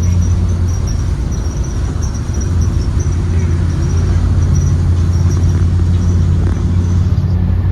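The Ford 7.3-litre gasoline V8 of a 2023 Blue Bird Vision school bus running at a steady pace, a constant low drone heard from inside the bus, with a faint high rattle over it.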